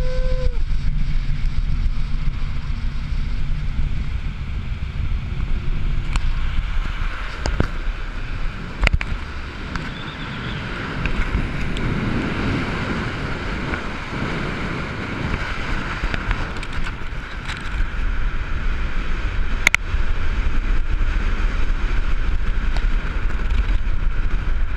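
Wind rushing over a GoPro Hero3's microphone on a fast bicycle descent, a loud steady low rumble, with a couple of sharp clicks partway through.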